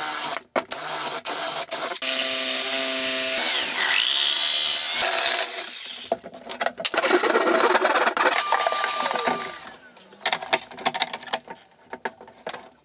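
A cordless drill bores through an ABS plastic enclosure lid in short runs. About six seconds in a jigsaw takes over, cutting the opening in the ABS, and it stops around ten seconds in. Scattered knocks and clatter follow as the plastic lid is handled.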